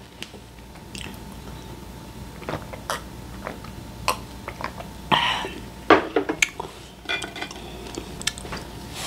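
A glass of somaek being drunk, with small clinks and clicks around it. About six seconds in comes a sharp knock as the glass is set down on the wooden table, then small crunches and clicks of snacks being eaten.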